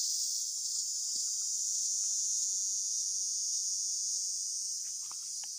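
Steady high-pitched drone of an insect chorus in tropical woodland, slowly fading towards the end. A few faint crunching steps on dry leaf litter near the end.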